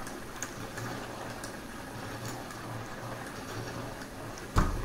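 Low, steady room noise with a faint hum that comes and goes and a few small clicks, then a sudden low thump near the end.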